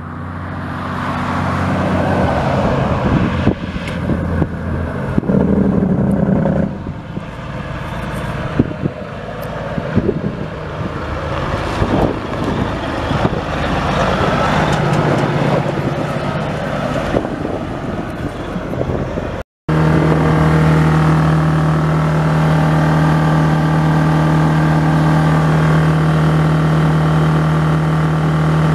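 Caterpillar C15 turbo diesel in a Kenworth W900B semi truck running, its sound rising and falling. About two-thirds of the way through it cuts off briefly, then the engine runs steadily at a constant speed, as at idle.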